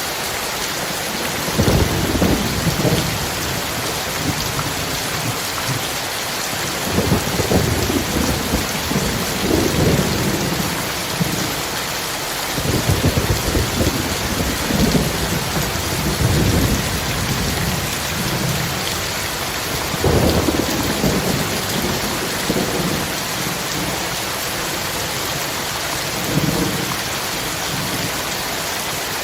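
Heavy rain pouring steadily, with thunder rolling low and deep about six times: near the start, around a third of the way in, through the middle, and near the end.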